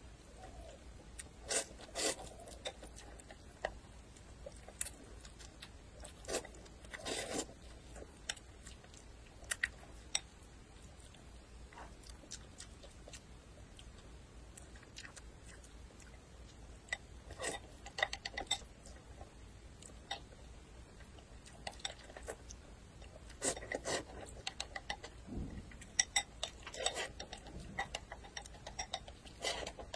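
Close-up mouth sounds of eating noodles: short wet slurps and chewing smacks that come in scattered clusters with quieter stretches between, the busiest near the end as the bowl is tipped to the mouth.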